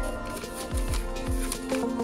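Background music with a steady beat and held pitched notes.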